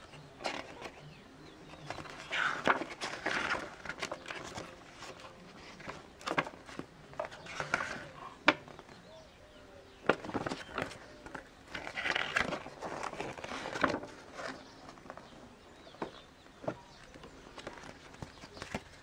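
Paper rustling as the pages of a printed user's manual are leafed through and a folded instruction sheet is opened and refolded, in several spells of crinkling with sharp ticks.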